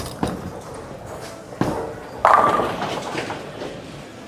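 A bowling ball drops onto the lane with a sharp thud, rolls, and about two and a quarter seconds later crashes into the pins, which clatter and die away over about a second. A separate sharp knock comes about a second and a half in.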